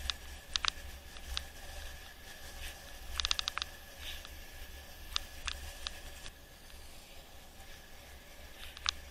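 Mountain bike rolling downhill on a concrete road, heard through an action camera: scattered sharp rattling clicks from the bike, with a quick run of ticks about three seconds in, over a low rumble of wind and road.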